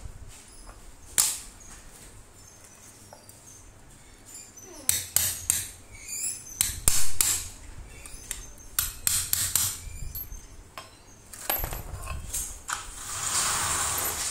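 Light hammer taps and metal clinks on a standing fan motor's rotor and end bell while its shaft bushing is fitted, a scattered handful of knocks in the middle. Near the end comes a hiss of spray lasting about a second and a half.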